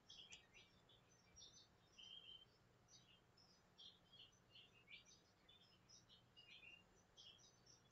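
Near silence, with faint birdsong in the background: many short, high chirps scattered irregularly throughout.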